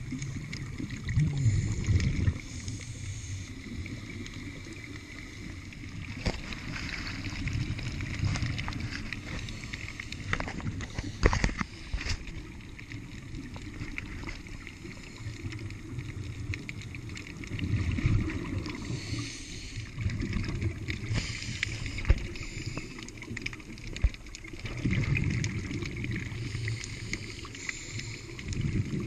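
Scuba diver breathing through a regulator underwater, heard through the camera housing: bubbling bursts of exhaled air rumble out about every seven or eight seconds over a steady underwater hiss. A few sharp knocks sound about eleven seconds in.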